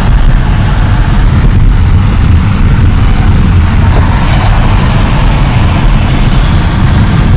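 Rumble of a moving car heard from inside the cabin, with wind buffeting through the open side window and steady road and engine noise.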